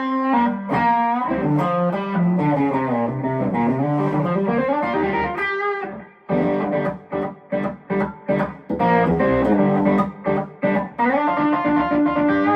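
Eastman Romeo SC hollow-body electric guitar played on its bridge pickup: ringing notes and chords at first, then short choppy chord stabs from about halfway, ending on a held chord.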